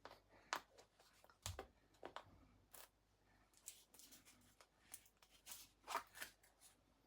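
Faint, scattered light clicks and taps of kitchen containers and utensils being handled while baking powder is added to cake batter, with one soft thump about a second and a half in.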